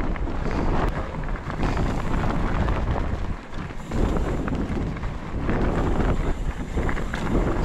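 Wind buffeting the microphone over a mountain bike rolling fast down rocky dirt singletrack, tyres crunching on gravel with frequent rattles and knocks from the bike. The noise eases briefly about halfway, then picks up again.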